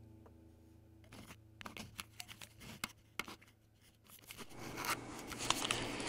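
Acoustic guitar music fading out in the first second, then a scatter of light clicks and scraping rubs, with a rising hiss over the last two seconds.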